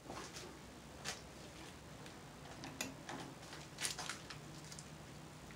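A few faint, sharp clicks and taps from hand work at a stopped metal lathe while a cutter is touched off, the loudest about four seconds in, over a faint steady low hum.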